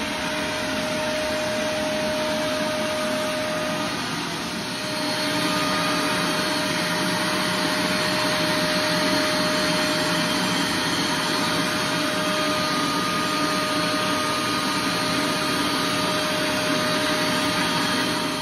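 A 5-gallon wet/dry shop vac running steadily, sucking up leftover carpet fibres and horse-hair padding from a bare wood subfloor through its hose wand and floor nozzle. It gets a little louder about five seconds in.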